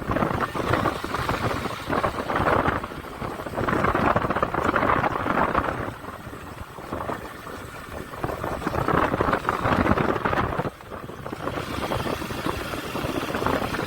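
Honda Shine single-cylinder motorcycle running along the road, with wind noise on the microphone rising and falling in swells.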